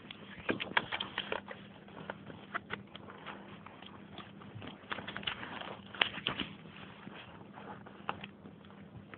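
Irregular soft clicks and taps in a loose, uneven run, with one sharper click about six seconds in, over a faint steady hum.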